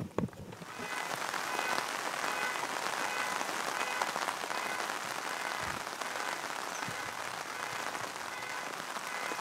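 Steady rain falling, an even hiss that comes in about a second in and holds without a break.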